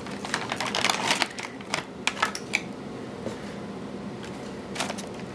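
Clear plastic packaging and foam inserts being handled: rapid crinkles and clicks for the first couple of seconds, quieter rustling in the middle, then a few sharp clicks near the end.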